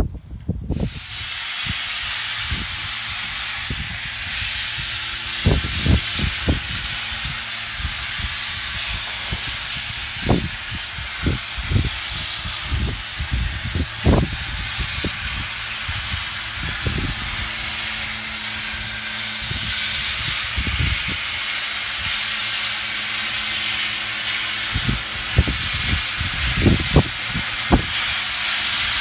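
Steam locomotive hissing steam loudly and steadily, starting suddenly about a second in, with scattered short low thumps.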